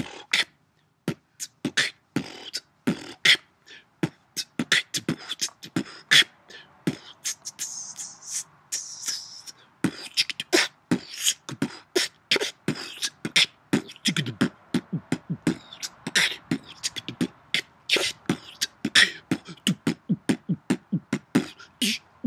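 Solo beatboxing: a fast, rhythmic run of percussive mouth and breath sounds, with a hissing stretch about eight seconds in and deeper bass sounds around fourteen seconds in.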